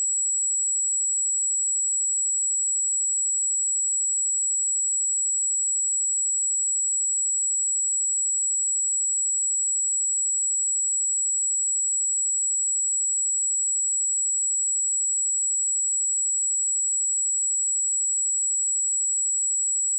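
A steady, unbroken pure sine-wave test tone at 7764 Hz, a single very high-pitched whistle-like tone held at constant level, for checking speakers or headphones.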